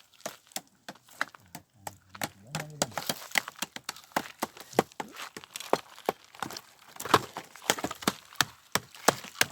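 Dry wheat stalks snapping and crackling as they are cut by hand: many sharp, dry snaps in quick, irregular succession.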